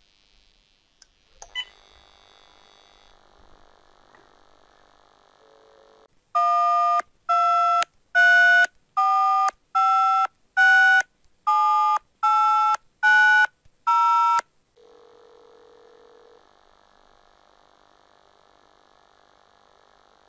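A couple of sharp clicks, then a cordless phone dialing automatically: about ten short touch-tone (DTMF) beeps in quick, even succession, each a different two-note pitch pair. Afterwards a steady low telephone ringing tone comes on for about a second and a half as the call goes through.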